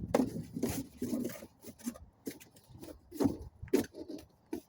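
Foam and cardboard packaging being handled and pulled out of a box: rubbing and scraping with scattered small knocks and clicks.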